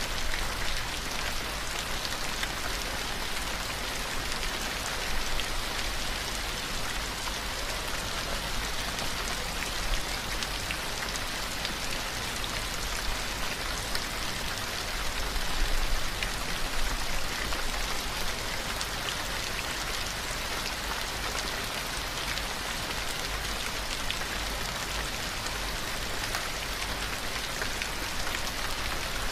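Steady rain falling on a surface: an even hiss with scattered fine drop patter, swelling slightly a little past halfway. It serves as the masking layer of a subliminal audio track.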